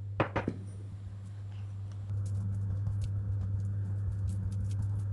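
A spoon spreading soft butter over rolled-out yeast dough: two light clicks of the spoon near the start, then soft, fast scraping and dabbing from about two seconds in, over a steady low hum.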